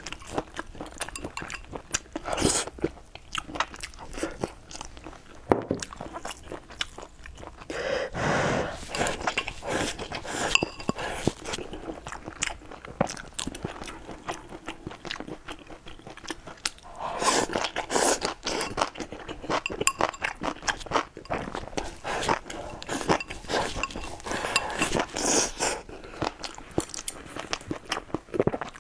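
Close-up mukbang eating sounds: a person chewing and smacking mouthfuls of rice and food, with many short crunches and clicks. The chewing gets denser and louder at a few points.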